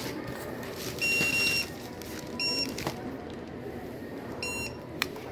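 Three electronic beeps from a card payment terminal as a card is tapped to pay: a longer beep about a second in, then two shorter ones, with a sharp click near the end.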